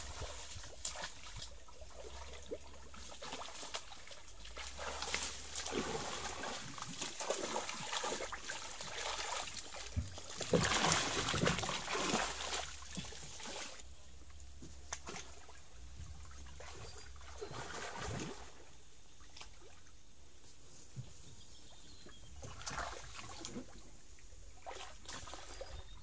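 Water splashing and sloshing as a person wades and gropes through a shallow, muddy stream, in irregular bursts that are busiest and loudest about ten to thirteen seconds in.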